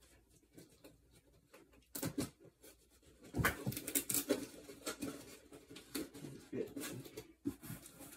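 A big cardboard box and its packing being handled and opened: scattered rustling and knocks, busiest from about three to seven seconds in.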